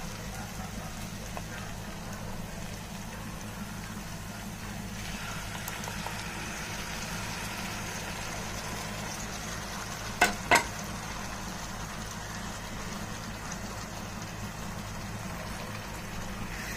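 Chopped onions frying in oil in a nonstick pan, a steady sizzle that grows louder about five seconds in as tomato puree goes into the pan. About ten seconds in come two sharp knocks close together, the loudest sounds, over a steady low hum.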